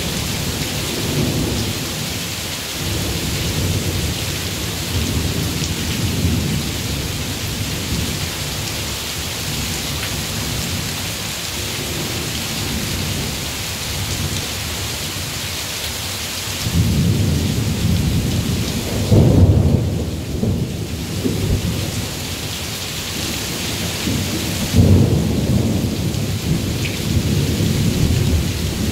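Steady heavy rain, with thunder rumbling beneath it. Two louder rolls of thunder come a little past halfway and again near the end.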